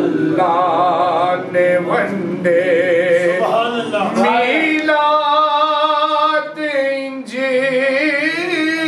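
A man chanting a naat, a devotional poem in praise of the Prophet, in a melismatic solo voice into a microphone, with long held, wavering notes and no instruments.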